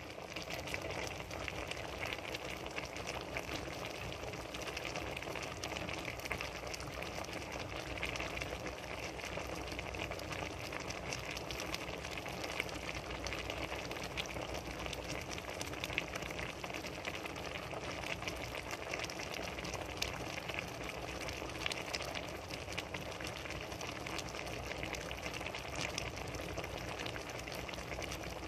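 Pan of red beans, vegetables and fried tilapia simmering in its broth: a steady bubbling with small pops.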